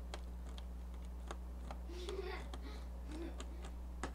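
Small screwdriver clicking and ticking in a bezel screw at the bottom corner of a Sony VPC-EJ laptop's screen as the screw is backed out, with a sharper click near the end, over a steady low hum.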